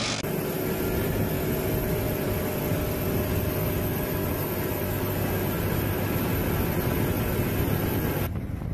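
Large tractor's engine running steadily under load, heard from inside the cab while it pulls a field cultivator. Near the end the sound cuts abruptly to a quieter, duller engine noise.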